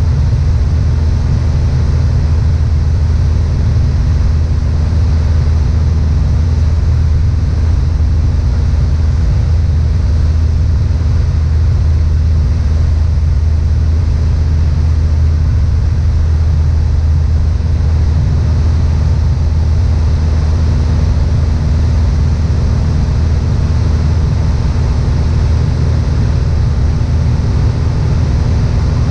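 A Piper Warrior II's four-cylinder Lycoming engine and propeller in flight, a steady, unchanging low drone heard from inside the cabin.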